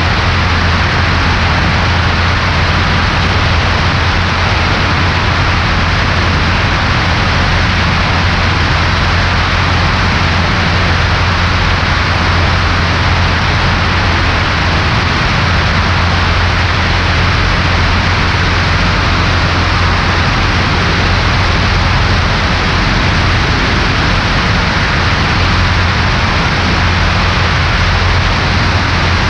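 Cabin noise of a Cessna 140A in flight: the piston engine and propeller give a steady low drone under a constant rushing of air, with no change in pitch or level. The engine is running to break in a new cylinder.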